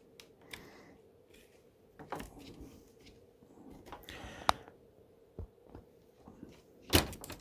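Hands working on a laptop's screen assembly: scattered small plastic clicks and taps, with a sharp click about four and a half seconds in and a louder knock near the end.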